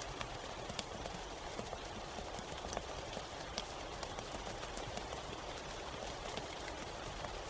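Steady rain falling, with scattered sharp drop impacts ticking irregularly over an even hiss.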